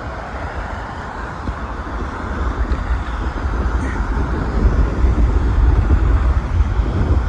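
Wind buffeting the microphone, a rumbling gusty noise over a steady rushing hiss, growing louder about two seconds in.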